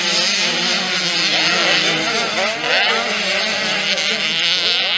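Several motocross bikes racing, their engines revving up and falling off with pitches that rise and fall over one another.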